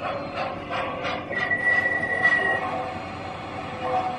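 MTH O gauge three-rail model train running, with an evenly repeating steam chuff from the locomotive's Proto-Sound system at about three beats a second. A high steady squeal lasts about a second in the middle.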